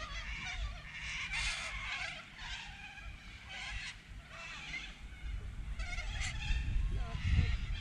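Birds calling repeatedly in short warbling, chirping phrases, over a low rumble that grows louder toward the end.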